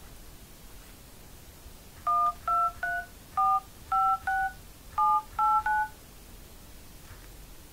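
Touch-tone (DTMF) key beeps from an HTC Wildfire S phone's dialer as the digits 1 through 9 are tapped in: nine short two-tone beeps in three quick groups of three, starting about two seconds in.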